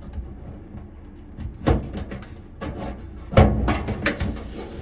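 Hands working inside an opened washing machine cabinet, making a few sharp knocks and clunks of parts being handled: one about a second and a half in, then two more close together near the end.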